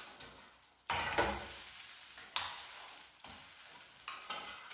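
Breaded sea bass fillets sizzling in oil in a frying pan as a wooden spatula scrapes under them to lift them out. There are sharp scrapes or knocks about one second and two and a half seconds in, each followed by a fading sizzle, and a smaller one near the end.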